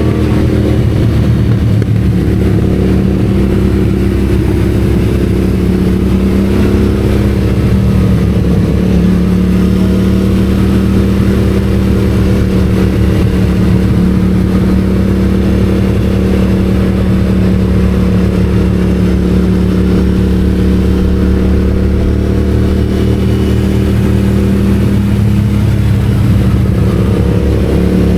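Yamaha MT-07's parallel-twin engine running through an Akrapovic titanium exhaust, held at steady revs while riding, the pitch climbing slightly near the end.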